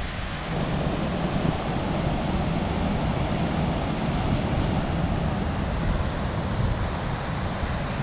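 Steady noise of big waves breaking on a beach, mixed with wind buffeting the microphone.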